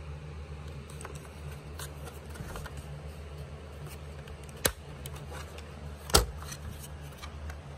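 The plastic body of a Kodak Kodamatic 930 instant camera being handled: light rustling and small clicks, with two sharp clicks about four and a half and six seconds in, the second the louder, over a steady low hum.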